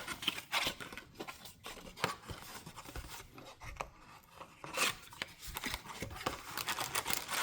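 A cardboard trading-card box and its packaging being handled: a run of scrapes, rubs and small clicks, with a louder scrape about five seconds in.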